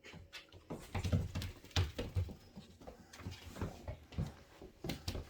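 A freshly bathed dog scrambling around in a small room, with irregular thumps, scuffs and pattering as it runs and bumps about. The loudest knocks come about one to two seconds in.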